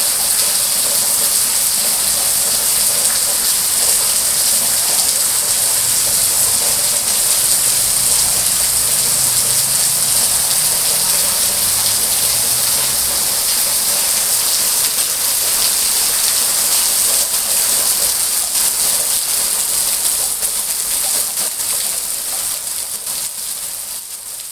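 Steady rain falling: a dense hiss of drops and patter, fading out near the end.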